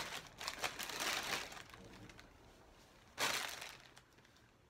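Packaging crinkling and rustling as swimwear is handled: a run of noisy bursts in the first second and a half, and one more about three seconds in.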